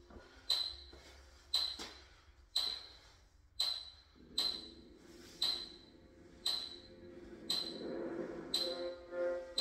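Sharp, high ticks, each with a short ping, evenly about once a second like a clock or timer counting seconds. Quiet background music fades back in from about four seconds in and grows louder near the end.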